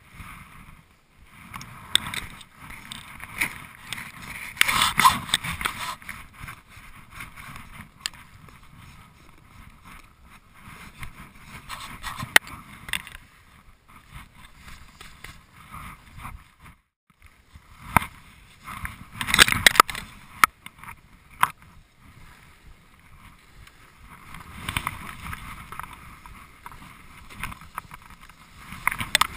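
Snowboard sliding and scraping over packed snow, an uneven rushing hiss with louder scrapes about five seconds in and again near twenty seconds, as the board edges into turns.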